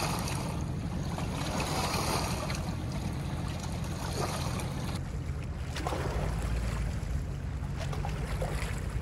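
Wind buffeting the microphone, a steady low rumble, with small waves lapping against shoreline rocks. The sound changes about five seconds in.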